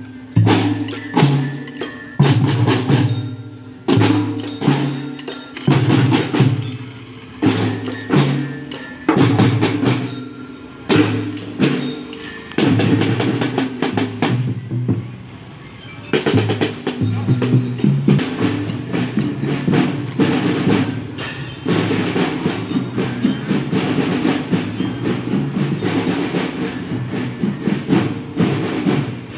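Marching drum band playing a drum beat: deep bass drum strokes under sharp snare and cymbal hits, turning busier and denser about halfway through.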